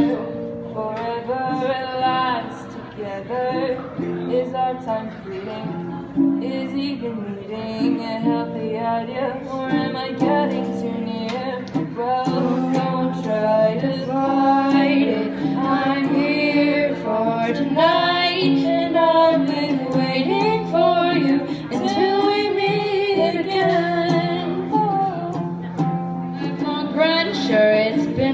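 A woman singing a song into a microphone, accompanied by a ukulele.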